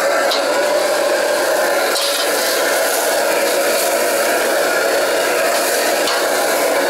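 Steady noise of a commercial wok range: the gas burner and the stove's water tap running. Over it, a metal ladle and a bamboo wok brush scrape and scrub inside the wok.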